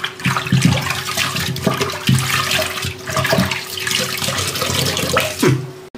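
Water sloshing and splashing in a metal pot as a soapy sponge is squeezed and wrung out in it, water dripping back into the pot.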